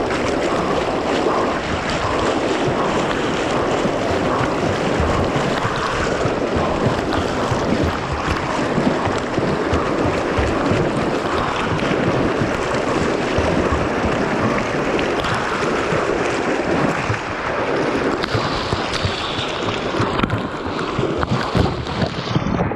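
Fast, churning whitewater rushing and splashing right at the microphone, steady and loud, with gusts of wind on the microphone. Near the end the sound turns duller.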